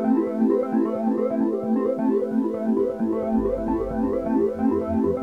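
Instrumental background music of quick, repeated notes; a deep bass line comes in about three seconds in.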